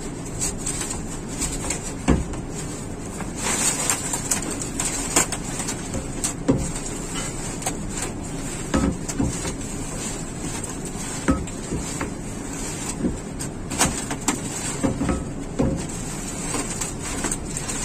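Irregular knocks and clatter, about a dozen over the stretch, from branch pipes being fitted and tightened into a cooling tower's sprinkler hub assembly, over a steady background rumble.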